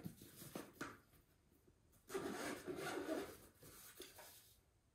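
Handling noise from a portable UV sanitizer bag being opened and turned over in the hands: light clicks, then rubbing of its plastic shell and fabric, loudest for about a second starting two seconds in.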